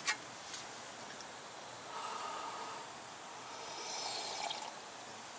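A metal mug knocks once as it is picked up off the camp table, then faint sips from it a few seconds later.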